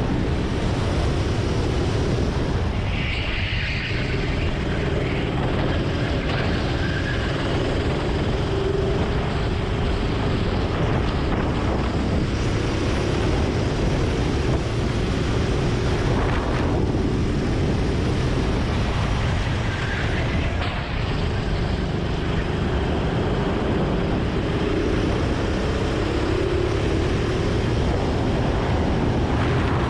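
Kart engine running hard at speed, its pitch rising and falling a little through the corners.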